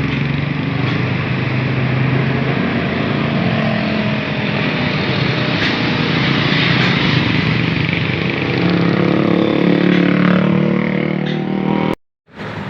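Bus engine running as the bus passes close by on the road, with a swell of engine and tyre noise through the middle and the engine's pitch rising a little toward the end. The sound cuts out abruptly for a moment near the end.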